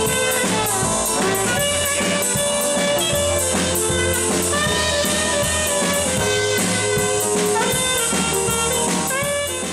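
Saxophone playing a jazz solo over a drum kit keeping a steady beat with cymbals; the music starts to fade out near the end.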